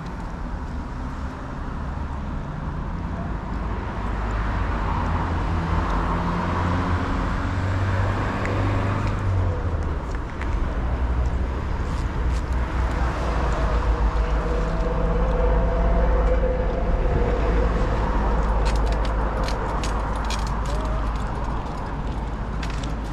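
Steady rumble of road traffic, growing louder through the middle and easing off, with a few faint clicks near the end.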